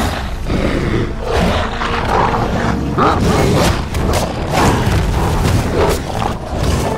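Film sound effects of giant CGI wolves snarling and growling as they fight, with repeated snarls and scuffling impacts.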